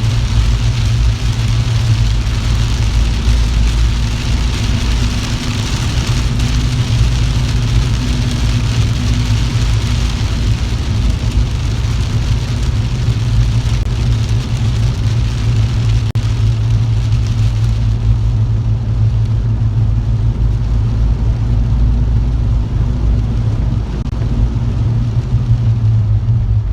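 Car driving on a wet road: a steady low engine and road drone, with a watery hiss over it that fades out about two-thirds of the way through.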